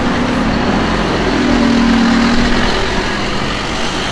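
Scania OmniDekka double-decker bus passing close by, its diesel engine running with a steady hum that grows louder about halfway through and then eases off.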